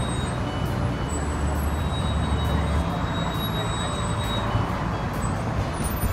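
Steady road traffic noise from a busy multi-lane highway, cars and trucks passing, with a deeper low rumble between about one and three seconds in.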